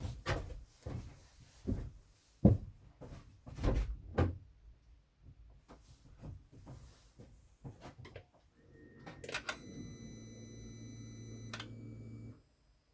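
Thumps and clicks of a car's door and interior as someone settles in. About two-thirds of the way through comes a steady low electric hum with faint high-pitched tones for about four seconds, then it cuts off suddenly: the car's ignition is switched on before the 1.4 TSI engine is started.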